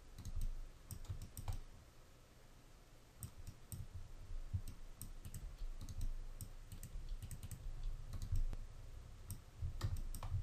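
Computer keyboard keystrokes and mouse button clicks, irregular and scattered, with a quieter gap about two to three seconds in. A low steady hum runs underneath.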